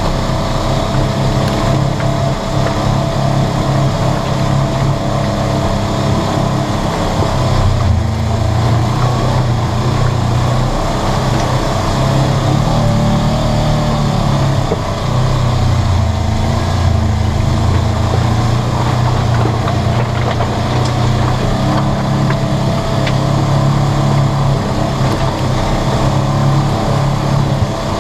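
Polaris RZR 900 side-by-side's twin-cylinder engine running steadily under way, heard from inside the cab. The engine speed rises briefly about eight seconds in and again about sixteen seconds in.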